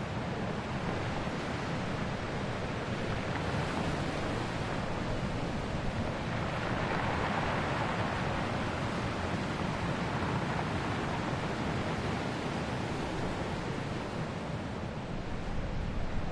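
Sea surf washing and breaking against shore rocks, with wind: a steady rush that swells for a few seconds around the middle.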